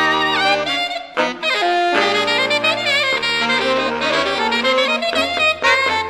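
Saxophone quartet playing a jazz arrangement, several saxophones holding notes in harmony with vibrato on the upper line. There is a short break about a second in before the parts move on.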